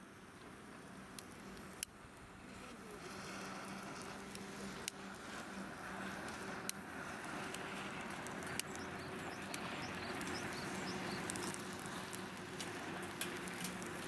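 Charcoal briquettes catching fire in a stainless fire stand: a hiss of flame that grows steadily louder, with scattered sharp crackles.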